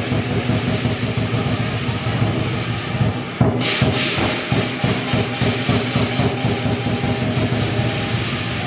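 Chinese lion-dance percussion: drum, cymbals and gong played in a steady, driving rhythm, with one louder crash about a third of the way in.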